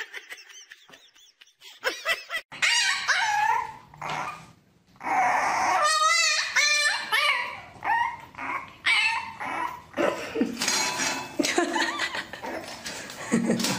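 A puppy whining and yipping over and over, some cries long and wavering.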